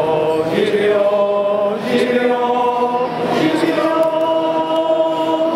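A crowd of people singing together in chorus, holding long notes.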